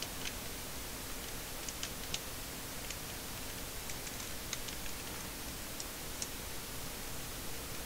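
Computer keyboard keystrokes: separate sharp clicks scattered irregularly, a few at a time, over a steady hiss.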